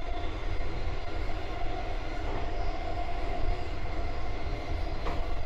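185 series electric train running at speed: a steady rumble of wheels on rail with a steady hum over it.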